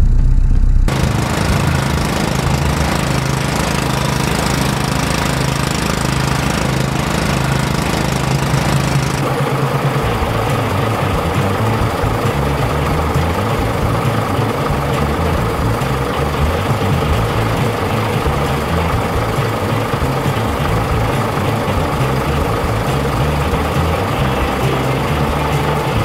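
A motor vehicle engine sound effect running steadily, dubbed over the toy vehicles, with an abrupt change in its sound about a second in and again about nine seconds in.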